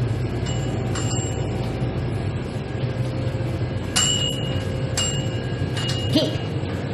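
Steady low hum of a convenience store's background, with a few short, high checkout beeps from a barcode scanner as a customer's items are rung up.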